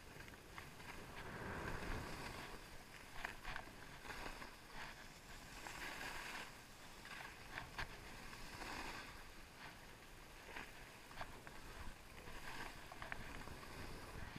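Skis hissing and scraping over packed snow, the noise swelling and fading as the skier carves turns. Scattered sharp clicks are heard along the way.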